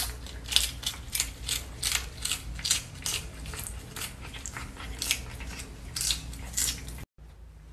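A cat biting and chewing a crisp lettuce leaf held in a hand: a run of crunching bites, about three a second, that stops suddenly near the end.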